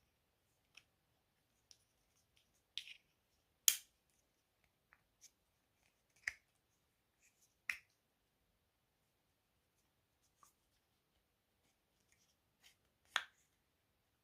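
Faint, scattered clicks and taps of a metal pocket lighter being handled in and out of a plastic storage case, the loudest a little under 4 seconds in, with a couple more near the end.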